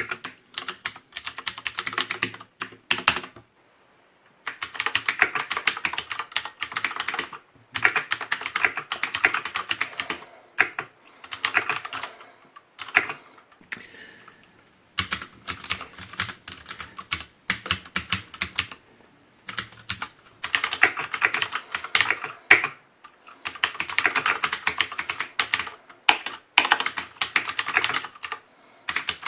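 Ducky One mechanical keyboard with Cherry MX Blue switches being typed on rapidly, a fast run of crisp clicking keystrokes in bursts of a few seconds with short pauses between them.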